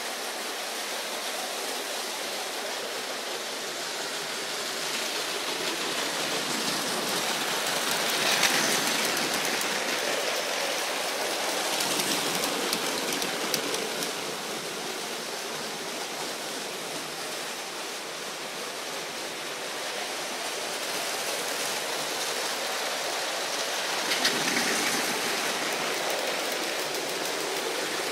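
Battery-powered Lego trains running on plastic Lego track: a steady whirring, rattling noise of motors and wheels that grows louder a few times as a train passes close, with a few small clicks.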